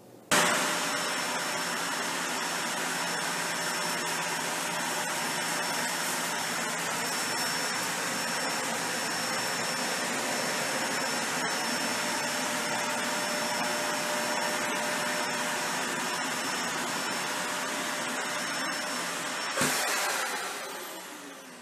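Dyson Ball Animal 3 upright vacuum running on carpet with its brush roll along a wall: a steady rushing hum with a thin high whine. Near the end there is a click, and the sound winds down and dies away.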